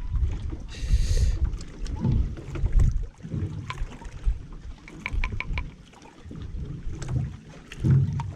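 Gusty low rumble of wind on the microphone, with light clicks and knocks of handling and a short hiss about a second in.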